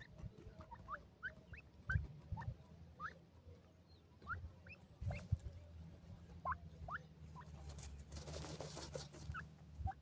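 Grey francolins giving soft, short rising peeps, scattered at about one or two a second, over scuffing and scratching in dry soil as they dust-bathe. About eight seconds in, a rustling hiss lasts around a second.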